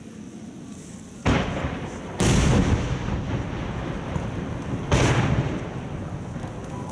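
Aerial firework shells bursting: three loud booms, a little over a second in, about a second later, and again near five seconds in, each trailing off in a long rolling rumble.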